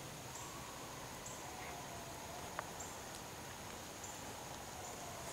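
Hunting hounds baying in the distance on a deer drive: long drawn-out bays, one after another. A faint high steady buzzing comes and goes, and a single sharp tick sounds about two and a half seconds in.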